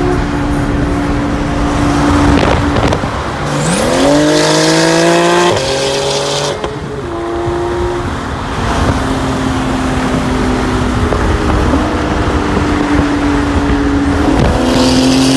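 Porsche 911 flat-six sports-car exhaust at freeway speed. The revs climb sharply about four seconds in, drop with a quick upshift, pull up again and drop at a second shift. They then hold a steady cruise before rising again near the end, with road and wind noise underneath.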